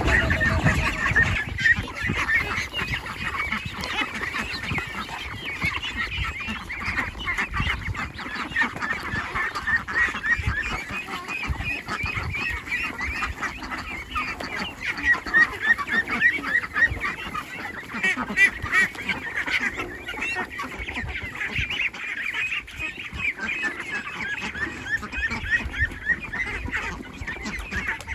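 A flock of domestic ducks calling without pause, many short overlapping quacks and calls, as they crowd in to be fed, with louder bursts of calling about midway.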